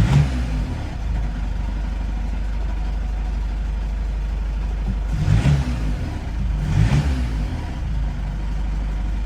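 VW Passat B8 engine idling with the clatter of a worn dual-mass flywheel, the knock typical of this flywheel on a cold engine. The engine speed rises and falls briefly twice, a little past the middle.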